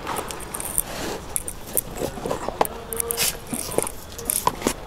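Plastic hand scoop scraping and digging through moist cow-dung manure in a plastic tub and tipping it into a plastic basin: a run of irregular scrapes and clicks.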